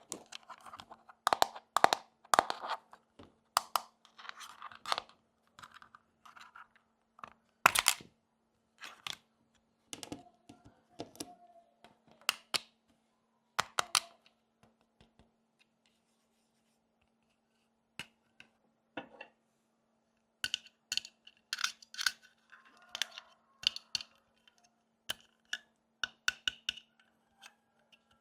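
Small plastic and miniature toy pieces being handled and set down: irregular sharp clicks, taps and short scrapes, with a pause of a few seconds midway. A faint steady hum runs underneath.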